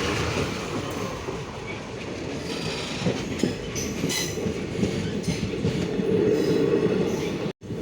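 Passenger train running along the track, heard from aboard: a steady rumble with the wheels clattering over the rail joints. The sound cuts out for a split second near the end.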